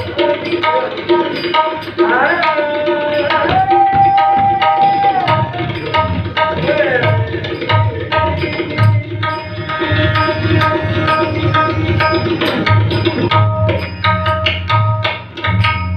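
Tabla playing a continuous rhythm, its deep bass strokes and sharp treble strokes running throughout, over a steady drone, with a melody that slides between notes and holds a long note a few seconds in.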